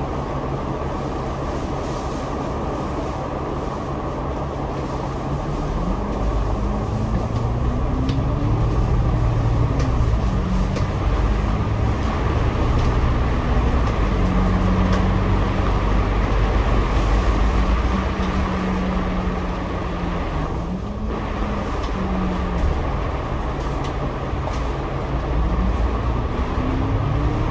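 Double-decker bus drivetrain heard from the upper deck: the engine and gearbox pitch climbs as the bus pulls away and speeds up, drops back with a gear change, then runs at a steady drone, and climbs again twice later on.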